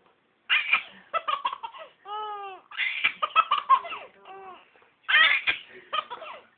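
Baby laughing in three loud bouts of choppy giggles, with drawn-out high squeals between them.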